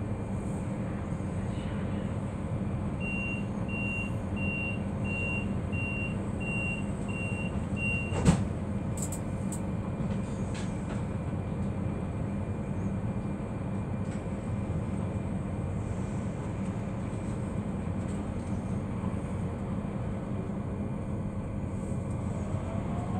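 Inside a DB Class 442 (Bombardier Talent 2) electric multiple unit: steady hum of the standing train, with a run of high door-closing warning beeps for about five seconds, then a sharp thump as the doors shut. The train then pulls away, and near the end the traction motors' rising whine begins.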